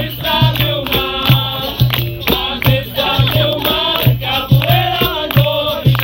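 Live capoeira roda music: group singing over a steady rhythm of sharp percussion strikes, with a low repeated tone such as a berimbau gives, and a pandeiro jingling.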